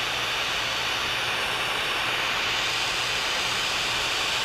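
Large propane torch burning with a steady hissing roar, its flame heating copper tubing to melt solder into the joint.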